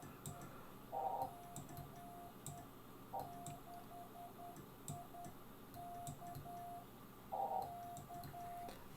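Morse code on a ham radio: a steady, faint, mid-pitched tone keyed on and off in short dots and longer dashes. Three brief rushes of noise come about a second in, about three seconds in and about seven and a half seconds in.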